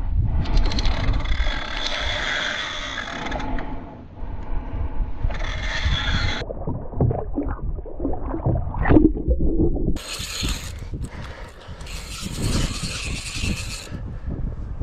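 A fishing reel is cranked in with a scraping, ratcheting sound. Later a hooked northern pike thrashes and splashes at the water's surface beside the canoe.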